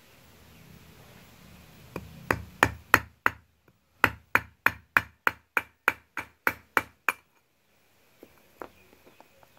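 Hammer striking a steel nail used as a punch to drive a pin out of a Honda New Megapro motorcycle drive chain: five sharp metal blows, a short pause, then a steady run of about eleven more at about three a second, stopping about seven seconds in. The chain is thick and its pin is hard, so it has to be punched out.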